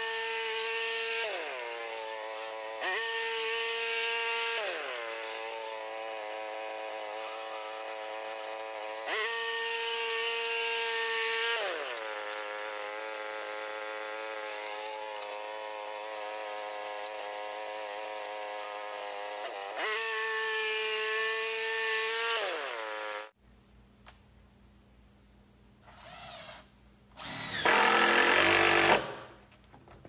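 Frontier OS27 portable bandsaw sawmill's engine running while sawing, its speed dropping and rising again several times. It cuts off suddenly, and near the end a cordless drill-driver runs in a short burst of about two seconds.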